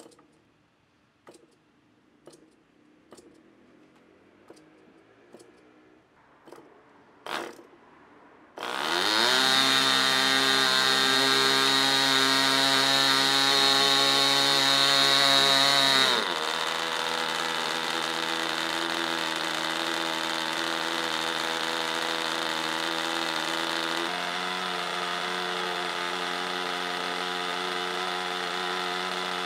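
Enya 30SS two-stroke glow model engine: a few faint ticks about a second apart, then it catches about eight seconds in and runs at high speed with a propeller. About halfway through it drops to a lower, steady running speed, which it holds to the end.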